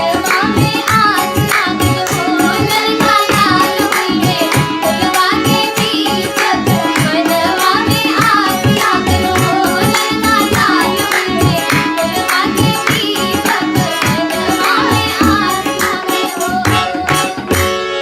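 Children singing a devotional song to Shiva, with a steady drum beat and instrumental accompaniment.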